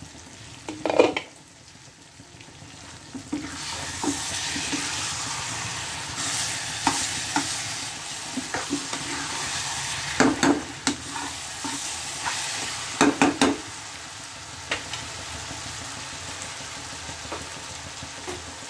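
A metal ladle stirring carrot, pea and potato curry as it sizzles in a kadhai, scraping and knocking against the pan in several clusters. A loud knock comes about a second in, and the sizzling eases off near the end.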